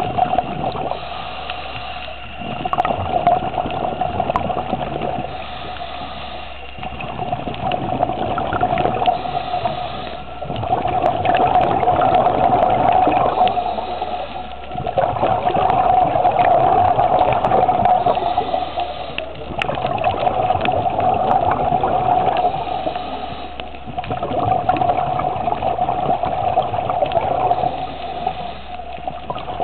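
A scuba diver breathing through a regulator underwater: swells of hissing and bubbling that rise and fall in a cycle of about four seconds, over a steady hum.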